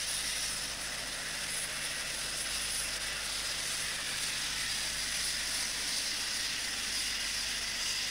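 British Rail Class 56 diesel locomotive hauling a freight train of hopper wagons at a distance: a steady low engine drone under an even hiss.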